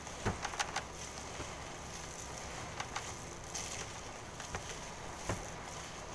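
A hand squishing and kneading raw ground-meat meatloaf mixture in a stainless steel bowl. Scattered light clicks and taps, a quick cluster about half a second in and a few more later, over a steady low hum.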